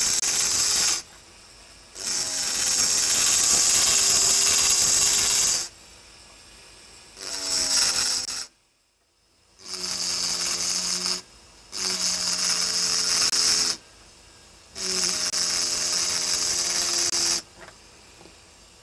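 Engraving drill's burr grinding into an optical crystal glass block under a water drip, in about six bursts of one to three seconds with short pauses between. Each burst is a bright, high grinding hiss over a steady motor hum.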